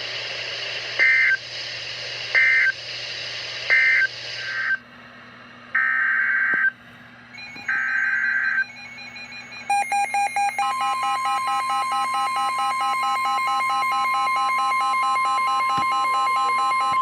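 NOAA Weather Radio EAS/SAME digital data bursts: three short screechy end-of-message bursts, then two longer header bursts. About ten seconds in, rapid pulsing beeps start, and just after, the steady 1050 Hz weather-radio warning alarm tone comes on, announcing a new warning.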